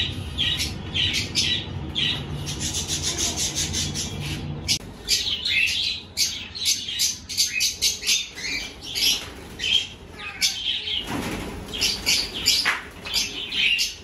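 Budgerigars chirping and chattering in an aviary, with a rapid flutter of wings over the first few seconds as a caught budgie struggles in the hand. There is a brief rustle about eleven seconds in.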